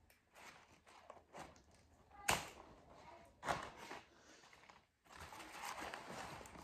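Scissors snipping through a yellowing plant leaf's stem: two sharp snips about a second apart, the first the loudest. Soft rustling of sphagnum moss and a plastic sheet follows near the end as the plant is handled.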